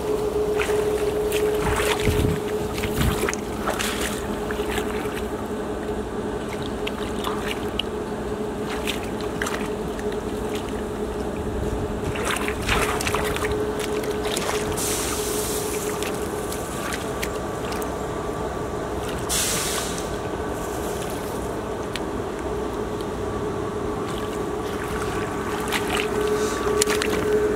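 Muddy water splashing and sloshing as hands dig and grope in a shallow flooded field, with several sharper splashes, over a steady hum with one constant tone.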